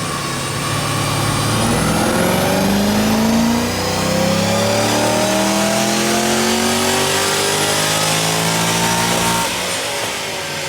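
Chevy SS's cammed LS3 V8, with headers, ported heads and an aftermarket intake, run up to high revs in a full-throttle pull on a chassis dyno. The pitch climbs steadily, dips briefly about a third of the way in, climbs again, then cuts off about a second before the end.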